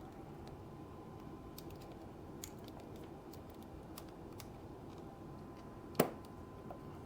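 Nylon zip tie being fastened around a motorcycle wiring loom: scattered light plastic clicks, then one sharp snap about six seconds in.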